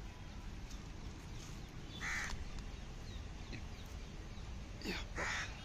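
A bird calling outdoors: three short calls, one about two seconds in and two close together near the end.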